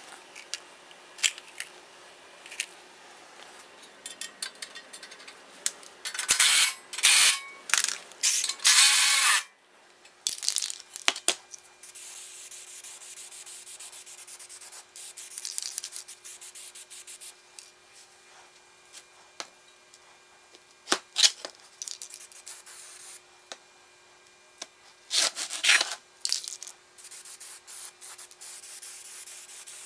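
Aerosol spray can of primer hissing as it sprays a steel bracket: a few short, loud bursts in the first third, a long steady spray through the middle, and another short burst near the end, with light clicks and knocks from handling the can at the start.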